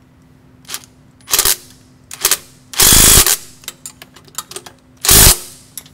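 Cordless impact wrench hammering in three short bursts, a brief one, then two of about half a second, as it runs bolts tight on the APU's exhaust flange, with small clinks of the hand wrench and socket between.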